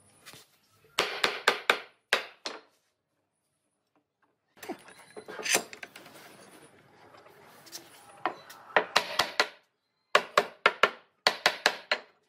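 Sharp knocks on wood in quick bursts of four or five, as the boards of a glued-up plank tabletop are tapped and pipe clamps are set across it. Between the bursts there is quieter shuffling and handling.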